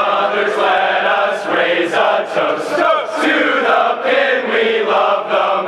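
A large men's choir singing together.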